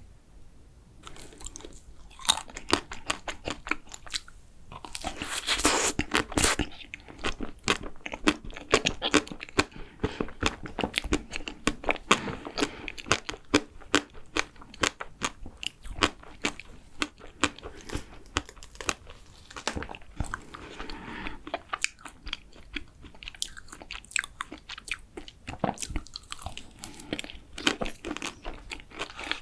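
Close-miked eating: a person biting into and chewing vanilla ice cream cake, with a steady run of small, sharp crunchy clicks. A louder, denser stretch of noise comes about five seconds in.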